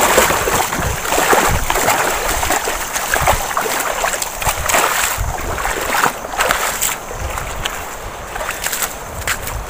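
Footsteps splashing and sloshing through shallow tidal water, irregular and uneven, becoming a little quieter in the last few seconds as the walking moves onto wet sand.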